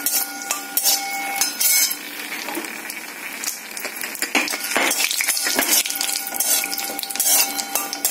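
Steel slotted spoon scraping and clinking against an iron kadai at irregular intervals, stirring dried red chillies roasting in a little sesame oil, with a light sizzle of the oil.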